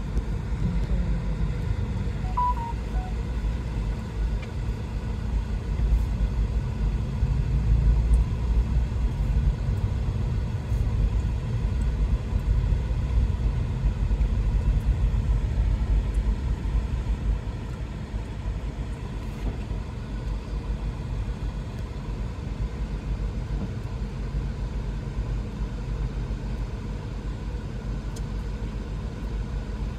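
Steady low rumble of a taxi driving through town, heard from inside the cabin; a little louder in the first half.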